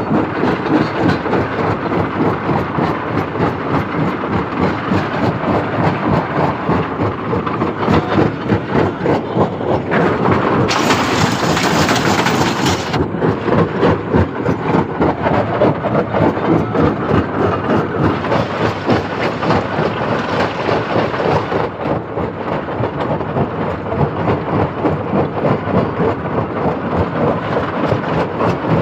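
Stone crusher machine running under load, a continuous rumble with crackling and grinding of rock being broken. About ten seconds in, a harsher hiss joins for two or three seconds.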